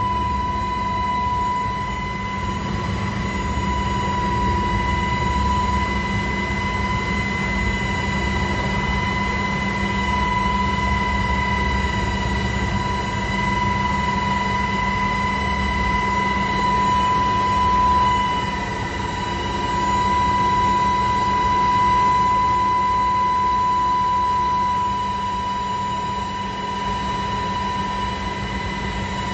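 Navy helicopter heard from inside its cabin while lifting off a ship and climbing: a steady loud drone of rotor and engines with a constant high whine over a low rumble.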